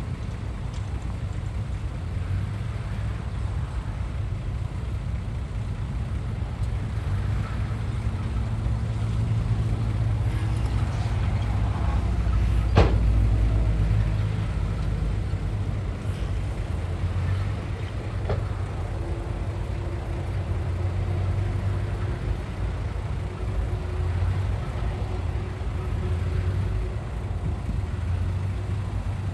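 Heavy diesel machinery, a bulldozer and a truck, running with a steady low drone, with one sharp bang about halfway through.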